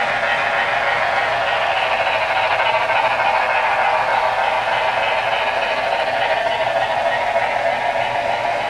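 HO scale model freight cars rolling along the track: a steady clatter of small metal wheels on model rails.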